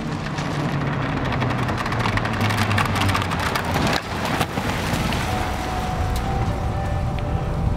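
Audi Q7 SUV driven hard on loose desert dirt: a steady engine note under the crackle and hiss of tyres spraying grit as the car slides.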